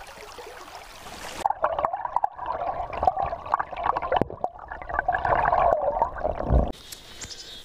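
Stream water heard from under the surface: muffled gurgling and bubbling with scattered clicks and knocks, from about a second and a half in until it cuts off suddenly near the end. A brook trout is being released by hand. Before it, faint above-water stream sound.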